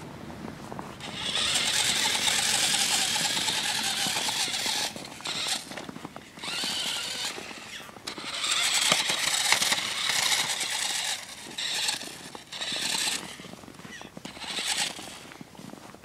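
Electric motor and gear drive of a battery-powered remote-control quad bike whining in bursts as it is driven over snow. There is a long run of a few seconds, then short throttle blips, then another long run.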